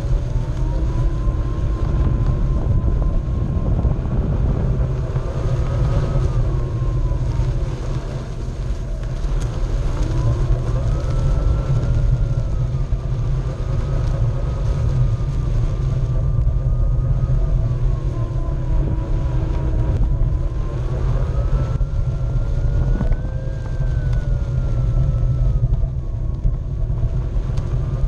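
Onewheel's hub motor whining, its pitch rising and falling slowly as the board speeds up and slows down. Underneath is a heavy low rumble from wind buffeting the board-mounted microphone and the tire rolling over grass.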